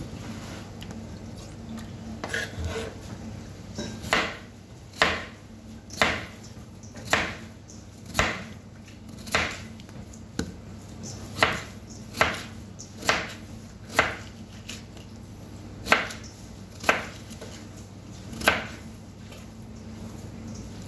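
Wavy-edged crinkle-cut knife slicing peeled potatoes on a plastic cutting board. About a dozen sharp cuts come roughly once a second, starting about four seconds in, over a steady low hum.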